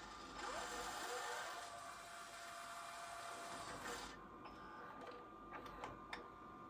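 The LG RC7000 VHS/DVD recorder's small motor-driven mechanism whirring for about three and a half seconds, then stopping, followed by a few sharp clicks.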